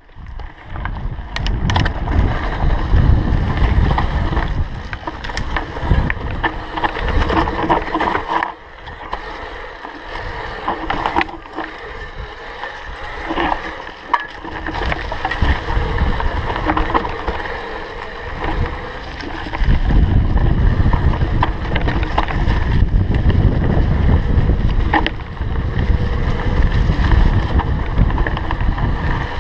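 Canyon Grand Canyon CF SL 8.9 carbon hardtail mountain bike riding fast down a dirt singletrack: wind buffeting the microphone as a low rumble, with tyres on dirt and the bike rattling over bumps in scattered sharp clicks. The rumble is heavier near the start and again in the last third, where the pace is higher.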